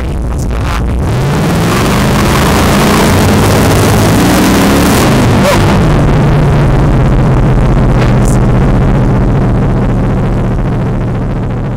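Car engine accelerating, its pitch climbing about a second in and then holding steady, the sound swelling loud and slowly fading.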